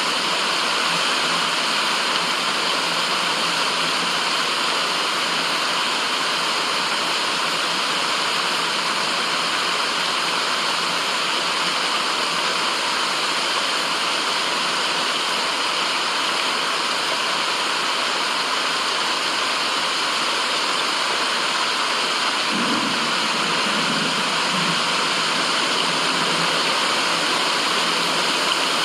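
Steady, even rushing white noise that sounds like falling water, with a faint low wavering sound around three-quarters of the way through.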